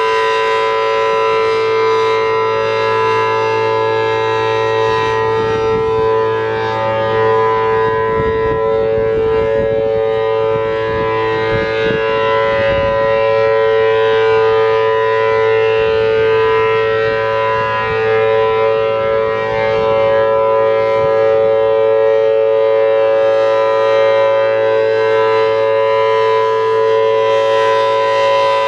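Federal Signal Thunderbolt 1000T outdoor warning siren with a 4/5-port rotor sounding its steady Alert signal: a loud, held two-note chord that keeps an even pitch, with a little low rumbling noise partway through.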